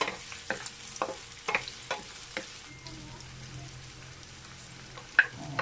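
Garlic cloves and red onion frying in olive oil with a steady sizzle, a wooden spatula knocking and scraping against the pan as they are stirred. The knocks come about twice a second at first, ease off for a couple of seconds, then two sharp knocks sound near the end.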